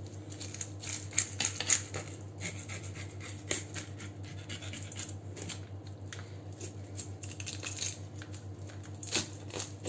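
A metal spoon scraping the scales off a raw whitefish on a plastic cutting board: a quick, irregular run of short scratchy strokes.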